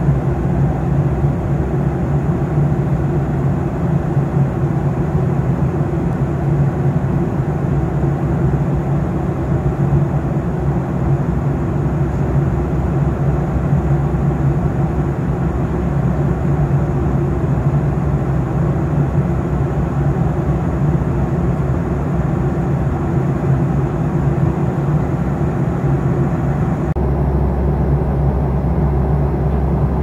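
Steady engine drone with a constant low hum. About 27 s in it shifts abruptly to a deeper, stronger rumble.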